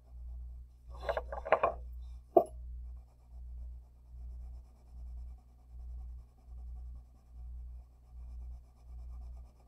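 Wax crayon scrubbed back and forth across paper in an even rhythm, about one and a half strokes a second. About a second in, metal bangle bracelets clink several times, with one sharp clink a moment later.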